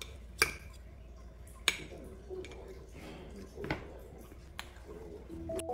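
Metal fork and spoon clinking sharply against a ceramic plate while cutting through a soft pancake stack, about five separate clinks spread over the few seconds, over a low steady hum.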